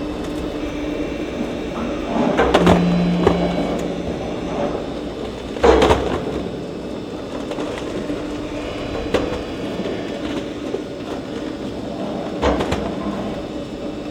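Noma W-280 industrial meat grinder running with a steady hum, broken by a few sharp knocks, the loudest about six seconds in.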